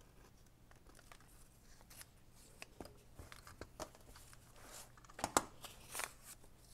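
Hand crafting with paper: scissors snipping and paper rustling as a strip of paper tape on a book-page envelope is trimmed and handled, with scattered small clicks and taps. The sharpest, loudest sounds come about five seconds in and again a second later.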